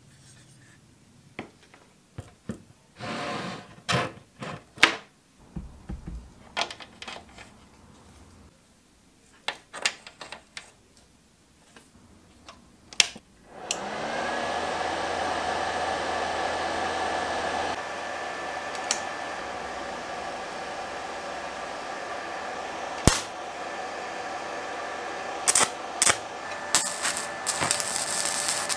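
Scattered light clicks and knocks of the rusty steel cleaver tang being handled. About halfway through, a Milleran MINI200 IGBT inverter welder is switched on: its cooling fan spins up with a rising whine, then runs steadily. Near the end, the crackle of a stick-welding arc on the cleaver tang starts over the fan.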